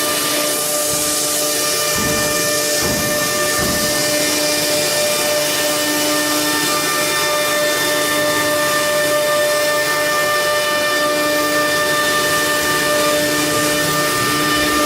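CNC router spindle running steadily through a cutting program: a constant high whine over a continuous hiss.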